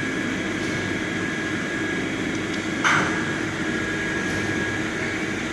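Hyundai WIA F500 Plus vertical machining centre milling aluminium at high speed, spindle at 10,000 rpm: a steady high cutting whine over dense machine noise, with one brief louder burst about three seconds in.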